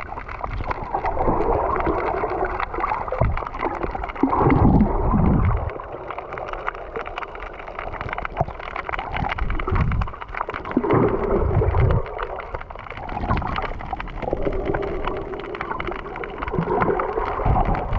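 Muffled underwater water noise through a submerged GoPro's housing: water gurgling and sloshing in uneven swells, with a few deep low surges.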